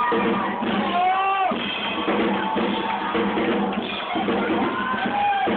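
Live rock band playing on stage, drum kit driving the music.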